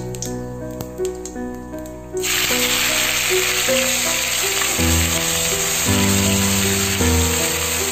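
Chopped onions hitting hot oil in an aluminium karai: a loud frying sizzle starts suddenly about two seconds in and keeps on steadily as they are stirred, over background music.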